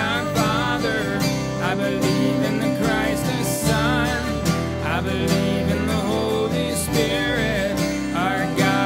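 Worship song performed live: acoustic guitar strummed and keyboard played under a woman and a man singing together.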